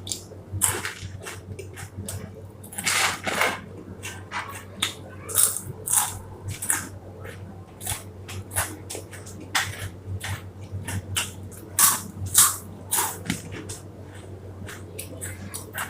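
Loud, irregular crunching of a person chewing mouthfuls of Kurkure, the crunchy corn snack, several crunches a second, over a steady low hum.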